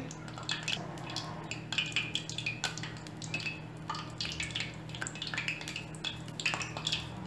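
Balls of flour dough deep-frying in hot oil in an aluminium pot: bubbling with scattered small crackling pops, over a steady low hum.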